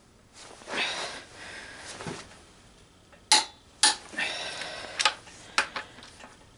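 Ratchet wrench working the oil pump bolts on an engine block: handling rustle, then two sharp metallic clicks about half a second apart, a short rasp of ratcheting, and a few lighter clicks near the end.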